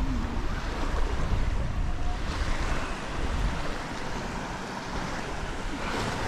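Wind buffeting the microphone over water lapping against the hull of a small fishing boat. The low buffeting eases after about three and a half seconds.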